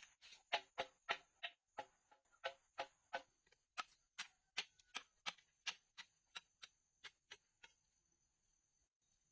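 A hand tool striking over and over, about three sharp blows a second, growing weaker and stopping about eight seconds in. A faint steady high whine runs underneath.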